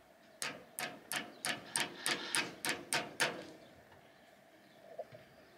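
A hammer tapping a small metal cone down onto the end of a rigging wire, about ten quick sharp metallic taps at about three a second, each ringing briefly. The taps are seating the cone of a swageless wire terminal, which is hard to get on.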